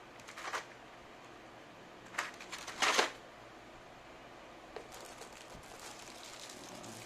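Handling noises while unboxing a mechanical keyboard: two short bursts of clicks and rustling, the louder one about three seconds in, then faint crackling like packaging being moved.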